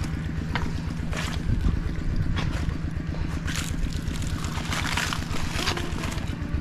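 A small engine running steadily, with water splashing and sloshing at intervals of about a second.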